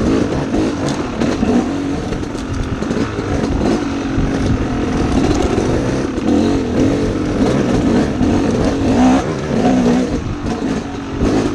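Dirt bike engine running on a trail ride, heard from the rider's own bike, its pitch rising and falling as the throttle is opened and closed.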